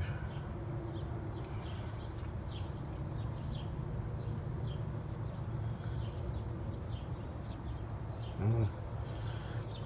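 Outdoor background: faint, scattered short chirping over a steady low hum, with a brief murmur of a man's voice about eight and a half seconds in.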